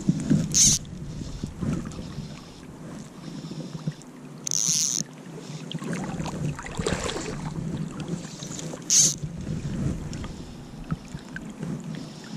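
Fly line swishing in three short hisses as a fly rod is cast and line is handled, the longest about four and a half seconds in, over a steady low rush of creek water and wind on the microphone.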